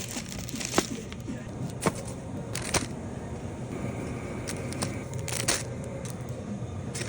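Scattered sharp clicks and knocks, about five over several seconds, over a low steady hum.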